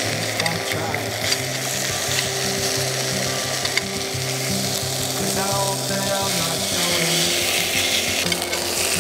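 Food frying in a hot pan, a steady sizzling hiss with a few sharp pops, over background music with a stepping bassline.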